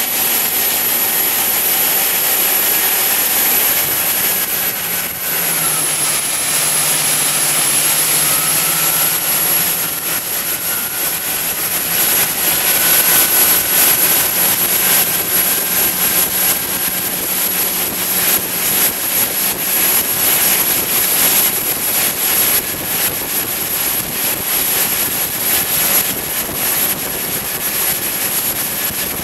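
Twin gas-turbine engines of a 50-foot monohull jet boat running at high speed: a steady high jet whine over the rush of water and wind. The pitch dips briefly about five seconds in.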